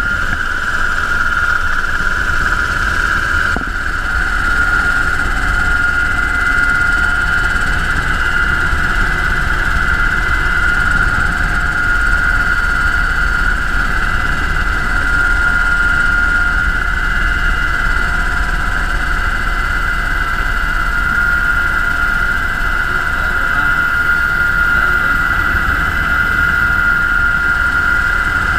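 UH-60 Black Hawk helicopter's twin turboshaft engines and rotor running steadily: a constant high-pitched whine over a low rumble.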